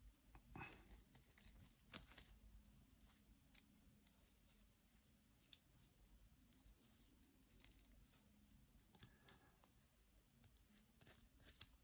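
Near silence with faint, scattered small clicks and scrapes of a metal mortar fuze and its thin safety wire being handled and threaded.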